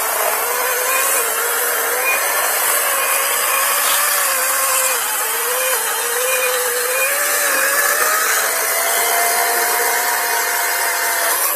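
Badger 40-volt brushless cordless chainsaw cutting through a log, its electric motor whine wavering up and down in pitch as the chain bites into the wood.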